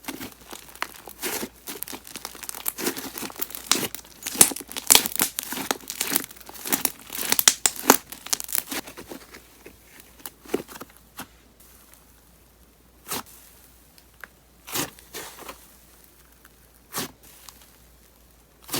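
Thick wood clay slime being worked by hand, its air bubbles crackling and popping in quick runs for about the first half, then only single heavy pops every second or two.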